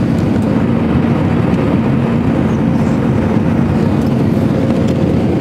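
Cabin noise of an Airbus A340-300 during takeoff: its four CFM56 engines at high power, heard as a steady rumble with a constant low droning hum.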